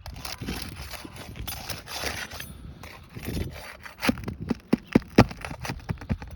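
Scraping and rustling, then a quick run of sharp clicks and knocks, the loudest about five seconds in: handling and work on a shingle roof as a shingle repair begins.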